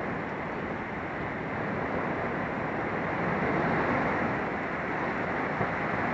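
Heavy rain pouring down in a wind-driven thunderstorm: a steady, dense hiss that swells slightly about halfway through.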